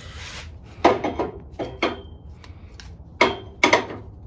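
Metal hand tools clinking and knocking against each other and the toolbox as they are handled: a short rustle, then a handful of sharp clinks in two clusters, a couple of them ringing briefly.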